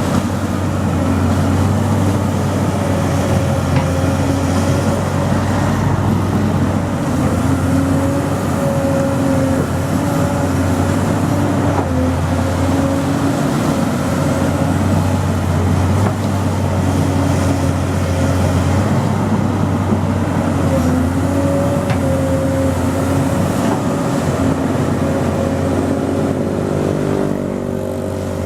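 Excavator's diesel engine running steadily under load, its pitch wavering slightly, then easing down near the end.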